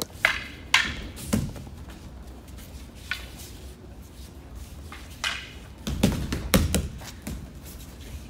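Aikido weapons practice on tatami mats: a series of sharp knocks and low thuds from wooden practice weapons (jo staff and bokken) and bodies landing. There are three in the first second and a half, one near three seconds, and a quick cluster from about five to seven seconds in.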